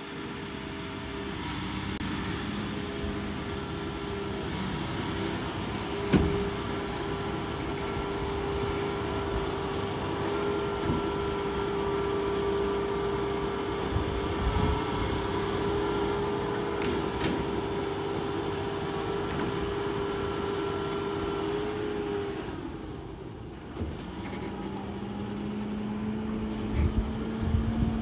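A machine running with a steady hum. About two-thirds of the way through it dips briefly, then carries on at a lower pitch that slowly rises, with a few scattered knocks.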